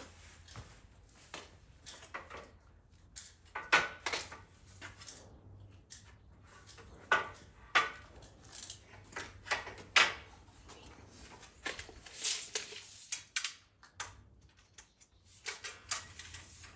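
Irregular clicks, knocks and clatter of tools and aluminum track parts being handled, with the loudest knocks about four, seven to eight and ten seconds in and a stretch of rustling near the end.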